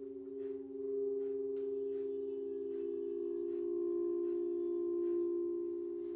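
Crystal singing bowls sounding a steady drone of two sustained notes with higher overtones. Over it, quick sharp breaths about two a second, breath of fire, that die away about halfway through.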